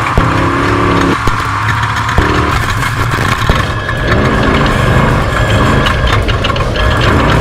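Off-road race truck's engine running hard on a rough sandy course: the engine note breaks off and comes back a couple of times early on, then rises and falls repeatedly, over a constant patter of knocks and rattles from the bumps.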